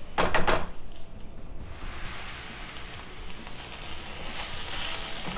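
Chicken pieces frying and sizzling in oil in a pan, a steady hiss that grows louder over the last few seconds. A brief, louder noise comes at the very start.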